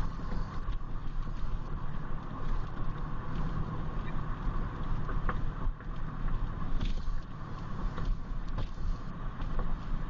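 A car driving, heard from inside the cabin: a steady low rumble of engine and road noise with a constant hum and a few light clicks.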